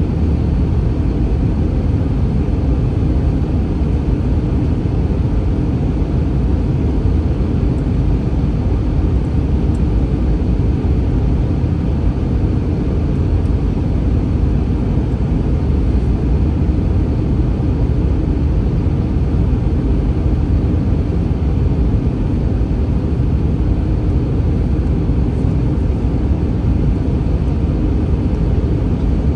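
Airbus A321 cabin noise heard from a passenger seat: a steady low rumble of engines and air, unchanging throughout.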